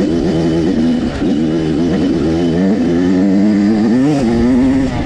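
Dirt bike engine running on a trail, its pitch rising and falling as the throttle is worked, with wind rumble on the microphone.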